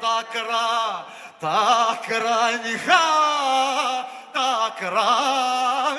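A man singing a Cretan folk song, drawing one syllable out into a long, ornamented melisma. The pitch wavers and trills, and the line comes in three held phrases with short breaths between them.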